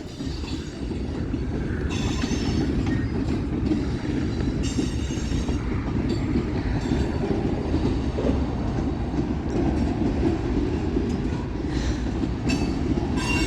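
Freight cars of a passing manifest train rolling by, a steady rumble of steel wheels on rail. Faint high-pitched squeals come through a couple of times.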